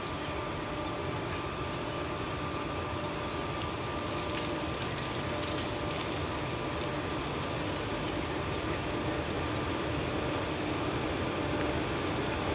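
Passenger train with a WAP-4 electric locomotive: a steady rumble with a few faint steady whining tones, getting slightly louder.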